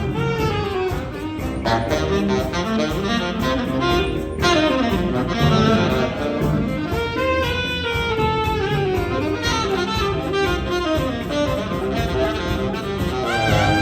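Saxophone ensemble of alto, two tenors and baritone, backed by bass guitar and piano, playing a jazz number with several sliding, bending notes.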